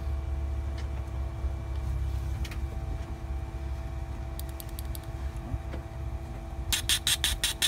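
Steady low hum throughout. About a second before the end, a fuel injector being pulsed on jump-box power while fed spray cleaner starts a rapid run of short hissing spurts, about seven a second.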